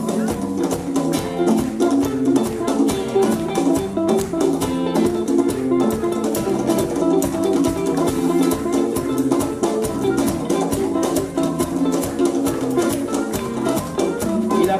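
Live band playing an instrumental passage: guitars, electric bass and drum kit keeping a steady beat.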